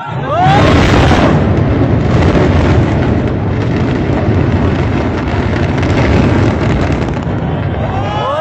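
Controlled-implosion demolition of high-rise concrete towers: a sudden loud blast of demolition charges that runs on as a deep, continuous rumble of the collapse for about eight seconds, with a few shouts from onlookers as it begins.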